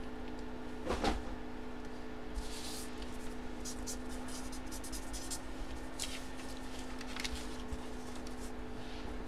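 Felt-tip marker writing on paper in a run of quick, short strokes, after a single handling knock about a second in. A steady low hum sits underneath.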